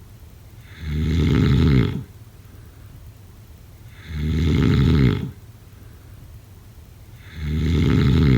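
A person snoring: three loud, rasping snores about three seconds apart, each swelling over about a second and then cutting off.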